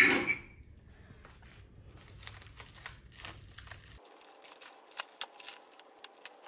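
Plastic wrapping on a bundle of firewood crinkling and tearing as it is pulled open, with many sharp crackles, preceded by a short loud thud at the very start.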